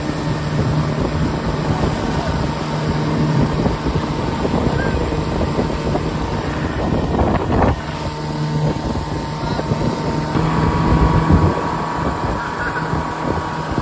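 Motorboat's outboard motor running steadily at towing speed, with wind buffeting the microphone; the engine note shifts slightly about ten seconds in.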